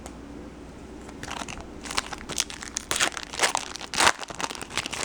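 Wrapper of a 2012 Bowman Chrome baseball card pack crinkling and tearing as the pack is opened by hand. A quick run of sharp, irregular crackles starts about a second in; the loudest comes near the end.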